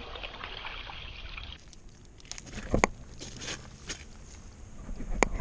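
Water sloshing and splashing in a hole in the ice as a hand works in it, with a few sharp knocks, the loudest near the end.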